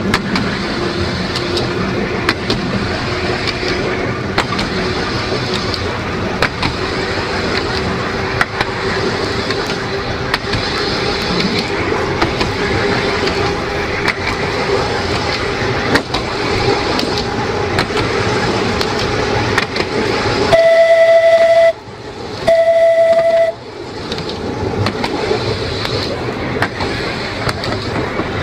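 Narrow-gauge electric tramcar running along its track: a steady hum that rises slightly in pitch, with scattered clicks of the wheels over the rail. Late on, the tram's horn sounds two loud blasts of about a second each.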